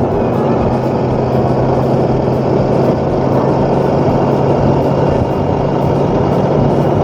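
Motorcycle engine running at a steady pitch while riding, with heavy wind noise over the microphone.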